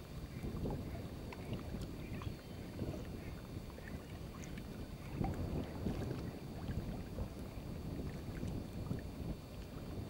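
Wind buffeting the microphone: an uneven low rumble that rises and falls in gusts.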